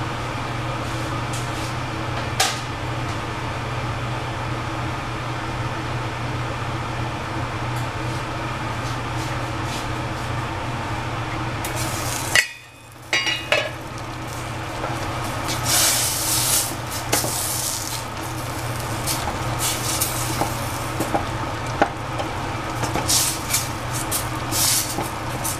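Kitchen clatter of dishes and utensils, scattered clinks and knocks that grow busier in the second half, over a steady low hum.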